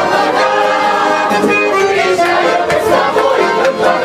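Accordion music playing steadily in held chords, with crowd noise underneath.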